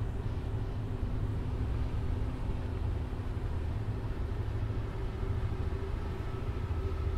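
Steady low rumble and hum of a tugboat's diesel engine running across open water, with a faint steady drone over it.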